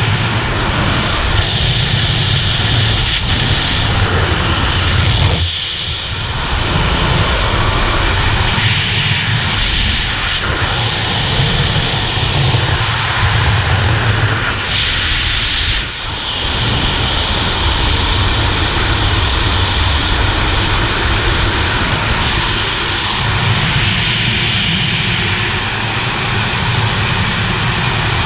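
Loud, steady rushing wind buffeting a body-worn camera's microphone: the jump plane's slipstream at the exit door, then the wind of freefall during a skydive. It briefly drops twice, about six seconds in and again around sixteen seconds.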